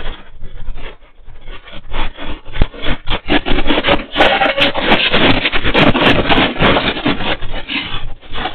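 Stocked shop shelving and its goods rattling and clattering as they shake in a strong earthquake, building to a loud din from about three seconds in as small items tumble to the floor. Picked up by a security camera's microphone.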